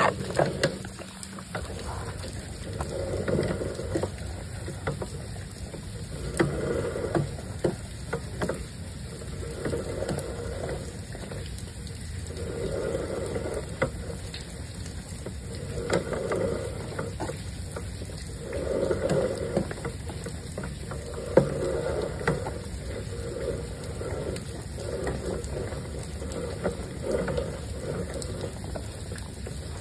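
Sewer inspection camera's push cable being pulled back out of a drain line by hand: a rubbing swish about every three seconds, with scattered clicks.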